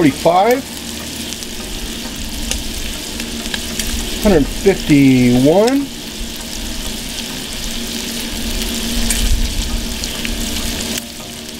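Shrimp frying in olive oil in a cast-iron skillet on a charcoal kettle grill, giving a steady sizzling hiss. A short wavering voice-like hum is heard twice, at the start and again about four seconds in.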